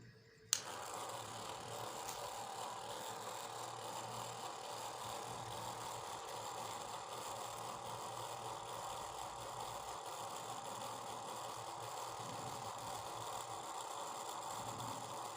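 Homemade bottle table fan's small 12 V DC motor switching on with a sudden click about half a second in, then running steadily with a whir and a light rattle.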